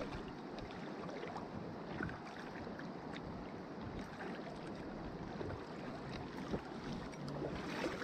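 Shallow creek water flowing over stones, a steady rushing with a few small knocks mixed in.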